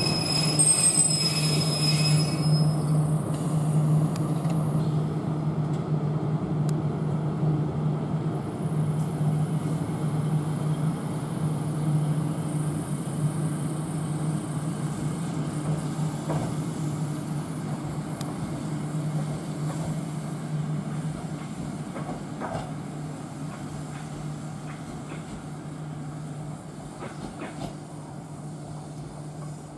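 Chōshi Electric Railway electric train running with a steady low hum that slowly fades as it pulls away. A high wheel squeal is heard briefly in the first couple of seconds.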